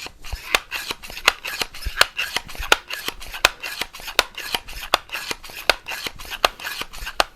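An Excellent C1 multi-pump air rifle being pumped up: a regular click about every three-quarters of a second, about ten strokes, with rasping friction between the clicks.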